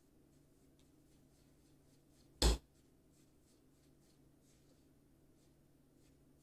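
Metal spoon stirring oily sugar scrub in a ceramic bowl: faint, scattered scraping ticks over a low steady hum, with one short, loud knock about two and a half seconds in.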